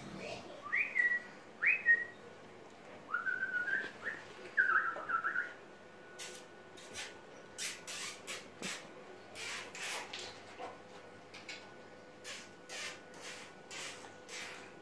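Staffordshire Bull Terrier puppy whining in high squeaky cries: two short rising yelps, then a string of wavering whimpers that stops about five and a half seconds in. After that, a dog sniffing in a run of short snuffles.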